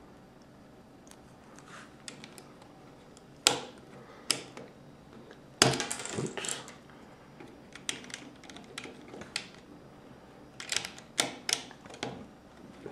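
Plastic Lego pieces clicking and knocking as a half-built Lego model car is handled and pieces are pressed onto it. There are scattered sharp clicks, with the loudest about halfway through followed by a brief clatter, and a quick run of clicks near the end.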